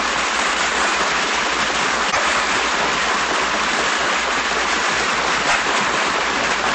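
Steady, loud hiss of static-like noise with a low hum beneath it, from an old radio broadcast recording after the programme has signed off.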